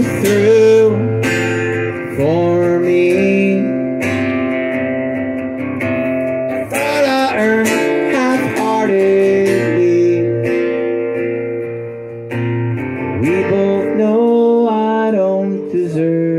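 Acoustic guitar strummed in chords while a man sings over it, a solo acoustic performance.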